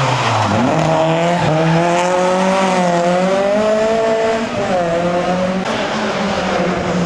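Rally car engine: the revs drop off at the start, pick up again about half a second in, then hold with the pitch gently rising and falling as it pulls.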